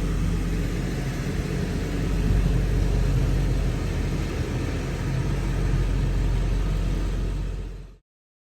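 A truck's engine runs steadily with road noise while driving, a constant low rumble. It fades out just before the end.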